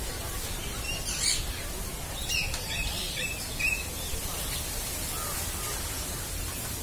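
Birds calling with short, high chirps, several times in a few scattered clusters, over a steady low rumble.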